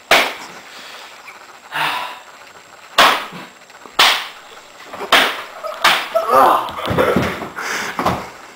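Latex gloves slapping against a face: several sharp smacks about a second apart, then a man's voice for the last couple of seconds.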